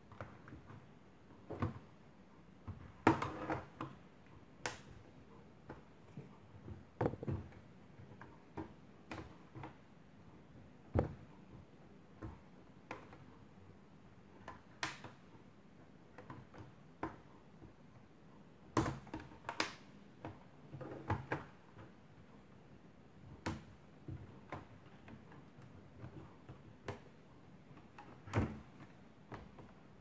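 Plastic retaining clips of an HP G72 laptop's top cover snapping loose as it is pried off the base with a plastic card. Irregular clicks and snaps, the loudest about three seconds in.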